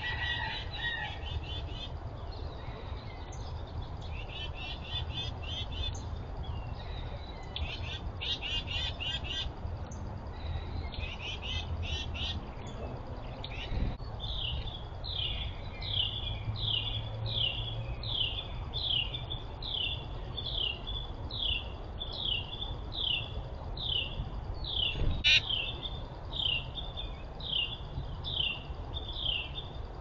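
Wild songbirds calling: bursts of rapid, chattering notes in the first half, then one bird repeating a clear downslurred whistle about one and a half times a second. A single sharp click about 25 seconds in, over a low steady rumble.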